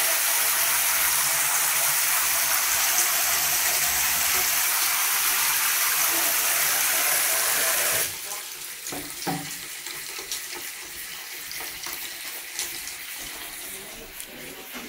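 Water from a hand-held shower head and a tap spraying into a washbasin full of water, a steady rushing splash. About eight seconds in the sound drops sharply, leaving quieter running water and a few knocks.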